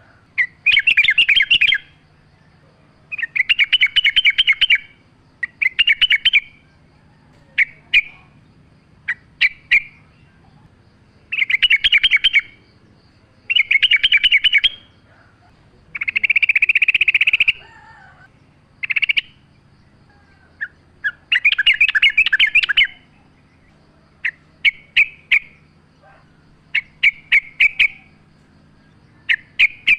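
Yellow-vented bulbul (trucukan) singing: bubbly, chattering phrases about a second long, repeated every couple of seconds, breaking into shorter quick notes near the end.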